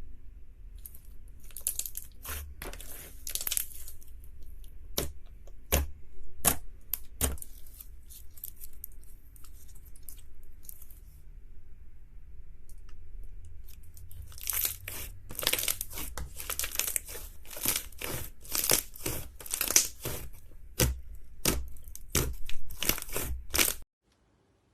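Slime being squeezed and pulled apart by hand, giving crisp crackling and popping sounds in clusters, densest in the second half, until the sound cuts off abruptly near the end.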